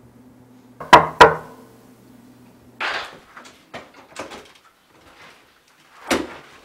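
House door being opened and shut: two sharp loud knocks about a second in, a short rush and a string of clicks, then another sharp bang near the end. A low steady hum under the start stops about three seconds in.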